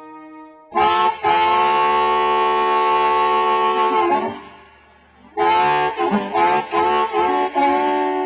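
Music of reedy held chords, harmonica-like: one long chord, a pause, then a run of shorter chords.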